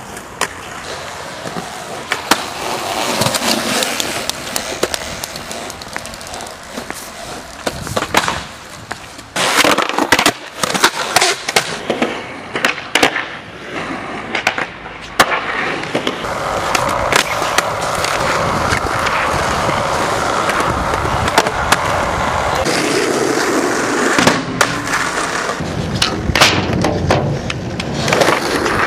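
Skateboard wheels rolling steadily, broken by runs of sharp clacks as the board hits and slaps the ground, clustered from about eight seconds in and again near the end.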